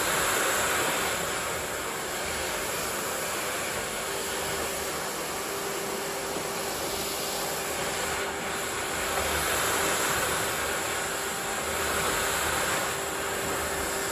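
Miele vacuum cleaner running steadily with a rushing suction noise over a steady motor hum, its loudness swelling and easing a few times.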